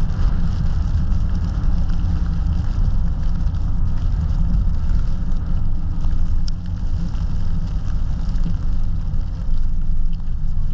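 A car driving through snow: a steady, loud low rumble of tyres, engine and wind noise.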